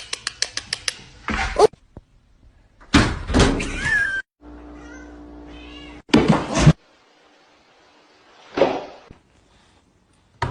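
Cat meowing, among a run of quick clicks near the start, a few thuds, and a steady buzzing tone lasting about a second and a half.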